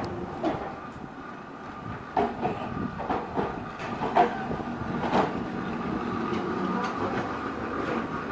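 Birney streetcar 163 rolling in and passing close by: its steel wheels click and knock on the street rails, under a steady whine that grows louder as the car nears.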